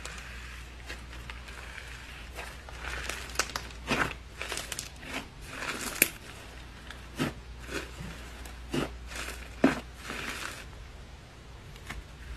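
Textured slime squeezed and kneaded by hand, giving irregular crackling pops and squelches, with a few louder pops along the way.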